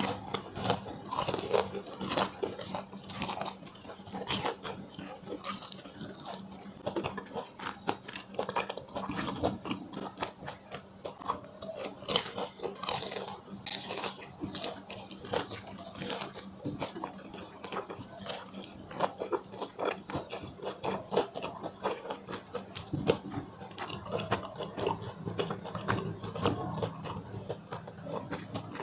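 A person chewing and biting food, with dense, irregular wet mouth clicks and smacks and some crunching.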